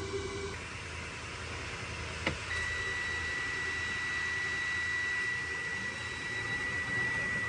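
Steady low rumble of idling trucks charging a dead truck's batteries through jumper cables. About two seconds in there is a single click, and just after it a continuous high-pitched electronic tone starts and holds steady.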